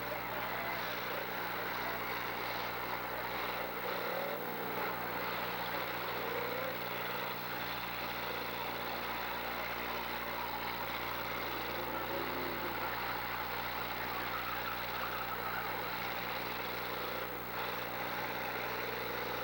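Demolition derby cars' engines idling, a steady mixed engine noise with no crashes.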